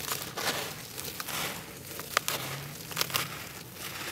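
Soaked block of red dirt crumbling between fingers in muddy water: gritty crunching and crackling, with several sharp cracks as chunks break away.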